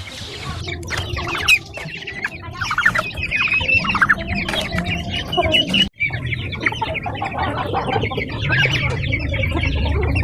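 Backyard flock of chickens and turkeys calling: many short overlapping clucks, squawks and chirps. The sound cuts out for a moment just before the middle, then the calling resumes.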